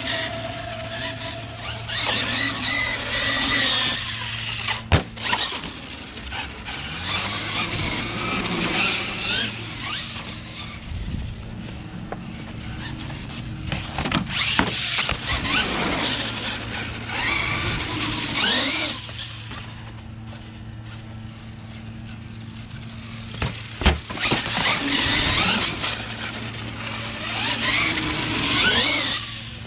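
Losi LMT Gravedigger RC monster truck's brushless electric motor and drivetrain whining, rising and falling in pitch as the truck speeds up and slows again and again on concrete. A couple of sharp knocks, about five seconds in and again near twenty-four seconds.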